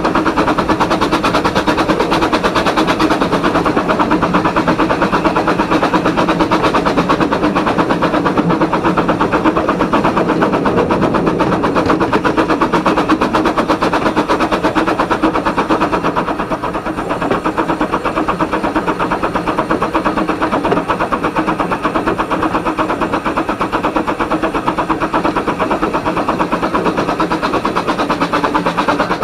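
Mariloo, a 12.25-inch gauge steam locomotive, running along the line as heard from its footplate: a fast, continuous rattle of beats that eases slightly about two-thirds of the way through.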